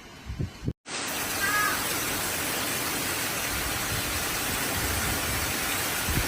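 Typhoon wind and heavy driving rain making a steady, even hiss, starting just under a second in after a brief cut; low gusts of wind rumble before the cut.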